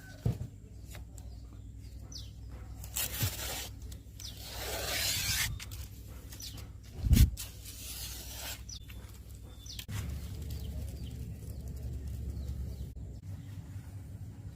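Rustling and scattered knocks, with one loud thump about seven seconds in and a few faint, short high chirps.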